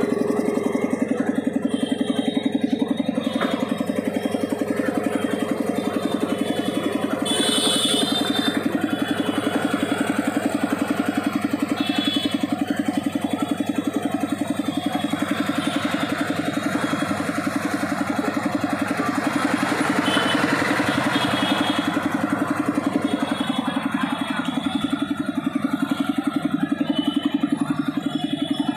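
Twin-piston air compressor driven by a 2 HP single-phase Crompton electric motor, running steadily with a rapid, even pumping pulse. There is a brief high hiss about seven seconds in.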